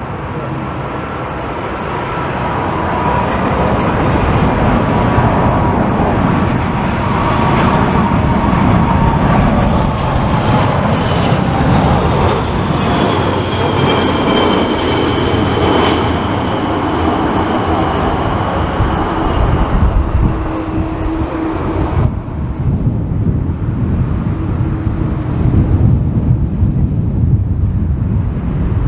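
Boeing 747-400 freighter's four jet engines on final approach, passing close by: a loud steady roar that builds, with engine whines that fall in pitch as it goes by. About two thirds of the way in the high whine cuts off, leaving a low rumble with gusty crosswind buffeting the microphone.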